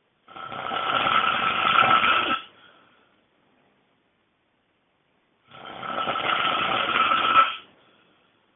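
A person snoring very loudly: two long snores of about two seconds each, some five seconds apart, each with a steady high tone running through it, and silence between them.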